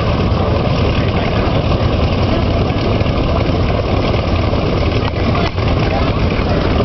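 Biplane's piston engine running steadily at idle while the plane taxis slowly.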